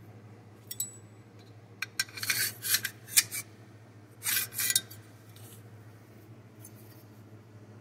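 Small metal clicks, clinks and scraping as an AR-15 bolt carrier and a steel gauge pin are handled and the pin is slid through the carrier's gas key to check alignment. The sounds come in short clusters, mostly about two seconds in and again just past four seconds.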